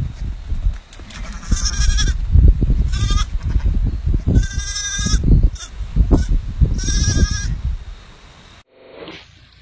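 Sheep bleating, four calls in a row, over heavy low rumbling and knocks. The sound cuts off abruptly near the end.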